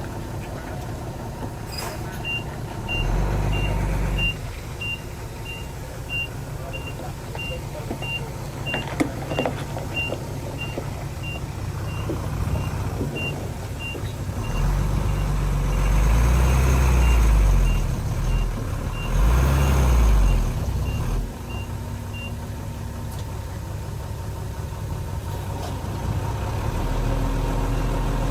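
An earthmoving machine's reversing alarm beeps steadily, about three beeps a second, for roughly twenty seconds. Under it diesel engines run, pulling harder for a second or two near the start and again for several seconds past the middle.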